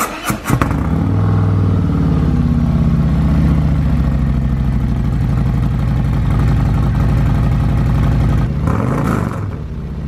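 Harley-Davidson Street Glide ST's Milwaukee-Eight 117 V-twin, breathing through a freshly fitted D&D 2-into-1 exhaust on a stage 1 tune, cranks on the starter and fires up about half a second in. It then settles into a steady idle, loud through the open exhaust, with a brief dip near the end.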